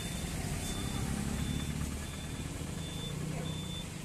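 A motor vehicle's engine running with a steady low rumble that swells slightly in the middle, and a faint high-pitched beep repeating about every 0.7 seconds.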